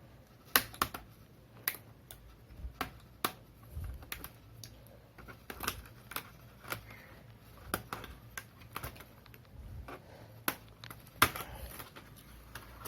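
Irregular plastic clicks and taps from a Dell Inspiron 15 3000 laptop being handled: its battery release latch is pressed and the battery worked out of the case.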